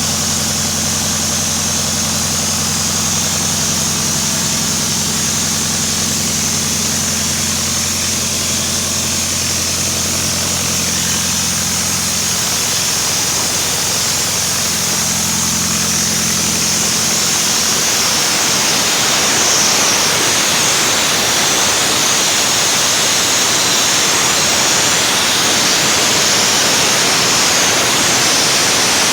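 PKSD-5.25 diesel mobile compressor station running steadily with a high hiss over its engine hum. About halfway through, the low hum fades out and a broad rushing hiss takes over and grows a little louder.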